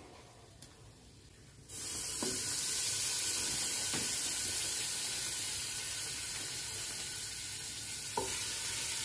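Chicken pieces sizzling as they are laid into hot oil in a pot with fried green chillies. The steady sizzle starts suddenly about two seconds in, with a few light clicks of the tongs against the pot.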